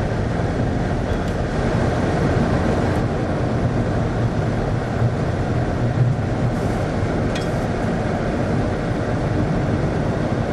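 Steady rumble of a car driving, heard from inside the cabin: engine and tyre noise on the road.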